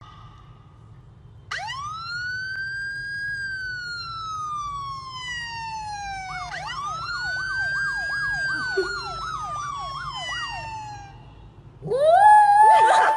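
Police-style siren: two long wails that each rise quickly and fall slowly, the second with a fast warbling yelp over it. Near the end a small white dog howls along, louder than the siren, its howl rising and then wavering.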